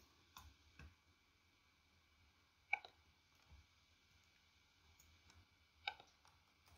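A handful of faint, widely spaced clicks of computer keyboard keys, the clearest about three seconds in, against near silence.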